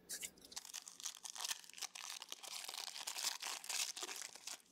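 Foil trading-card pack wrapper being torn open and crinkled by hand: a dense, irregular run of crackles and rustles.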